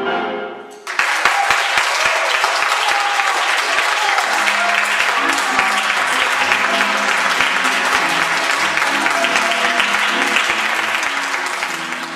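The last notes of the milonga music die away, and about a second in an audience breaks into steady applause, with some voices calling out over the clapping.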